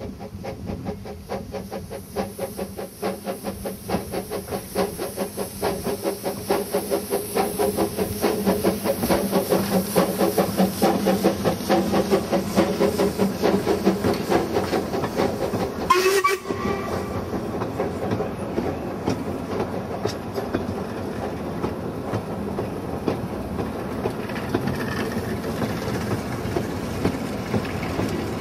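Quarry Hunslet 0-4-0 saddle-tank steam locomotive working a train, its exhaust beats chuffing in a rapid, even rhythm that grows louder as it approaches and passes. About sixteen seconds in there is a brief sharp sound, and then the coaches' wheels clatter steadily over the rail joints as they roll by.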